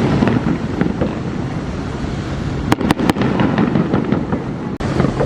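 Fireworks going off: a steady crackling of many small bursts, with three sharp bangs in quick succession about three seconds in.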